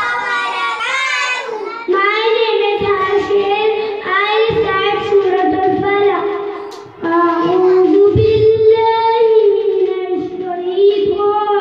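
A young boy reciting the Quran in the melodic chanted style of qirat: long drawn-out held phrases, broken by short pauses for breath.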